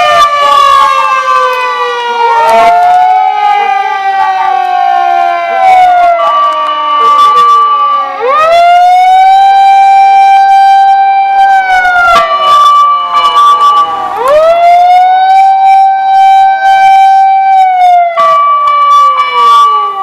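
Fire engine siren wailing loudly: the pitch rises quickly, holds, then slides slowly down, in cycles about every six seconds, with overlapping wails suggesting more than one siren.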